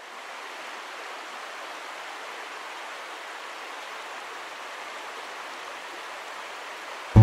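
Steady rushing of a mountain stream, fading in at the start.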